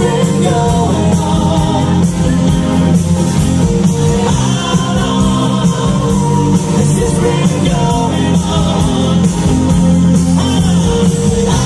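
Live rock band with amplified guitars, bass, keyboards, drums and congas, playing over a PA with singing and a steady beat.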